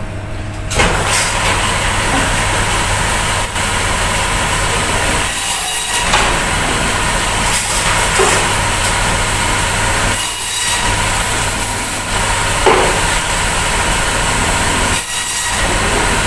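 Electric bone-cutting saw running and cutting through frozen beef oxtail: a loud, steady rasping noise over the motor's hum, starting about a second in and easing off briefly three times.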